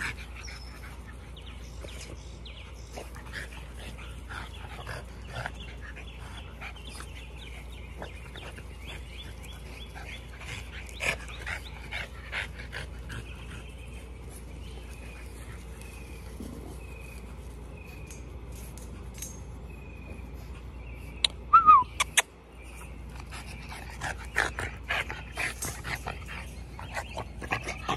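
French bulldog puppies playing, with scattered short yips and whimpers among scuffling. About three-quarters through comes the loudest moment: a brief sharp cry falling in pitch.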